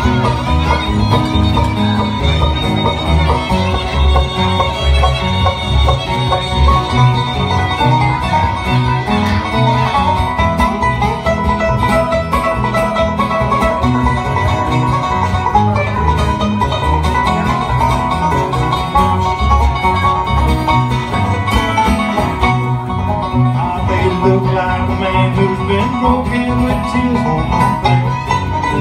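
Live bluegrass band playing an instrumental passage: fiddle and acoustic guitars over a steady low beat, with no singing.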